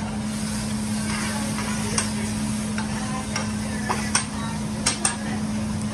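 Food sizzling on a hibachi steel griddle, under a steady hum, with sharp clicks of a metal spatula chopping and scraping on the plate several times, two close together near the end.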